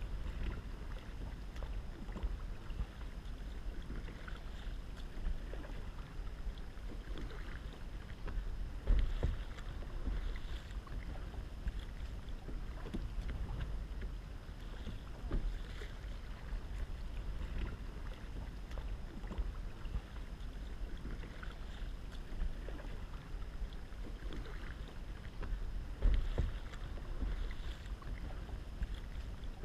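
Kayak paddle strokes dipping and splashing in calm lagoon water, under a steady rumble of wind on the microphone, with a few louder gusts.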